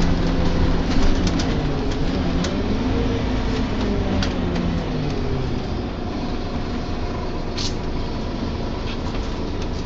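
Inside a Scania Omnilink K230UB single-deck diesel bus on the move: the engine and drivetrain run under light rattles, with a groaning tone that slides up and down in pitch a few seconds in, then settles into a steady whine.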